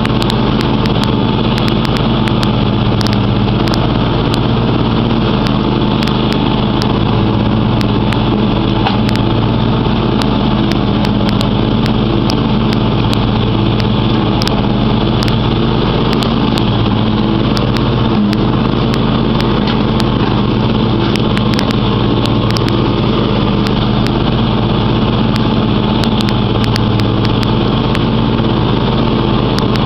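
John Deere X500 Multi-Terrain lawn tractor's 25 HP engine running steadily and loud as the tractor drives across grass, heard from the driver's seat, with scattered sharp clicks throughout.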